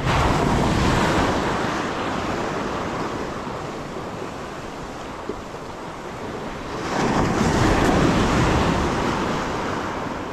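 Sea surf washing onto the shore in two surges, the first at once and the second swelling about seven seconds in, each fading slowly.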